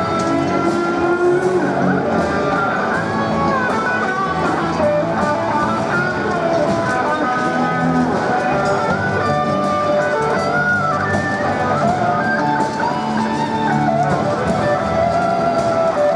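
A band playing live, an amplified electric guitar strumming under a melody, loud and continuous.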